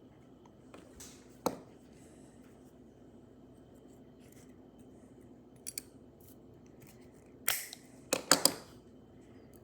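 Sharp clicks and scrapes of small parts being handled and worked into a heart rate monitor pod: a single click, two light ticks, then a louder burst of several clicks near the end.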